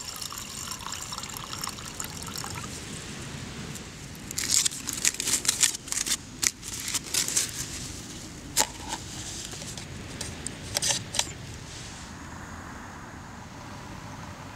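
Water poured onto rice in a Snow Peak Ti-Single 450 titanium cup, trickling for a couple of seconds. Then, from about four seconds in, aluminium foil crinkles loudly in bursts as it is crumpled and pressed over the cup as a lid, stopping near the end.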